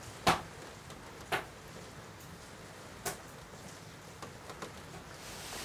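Three brief, sharp clicks or knocks, spaced about a second and then nearly two seconds apart, over a faint steady room hiss.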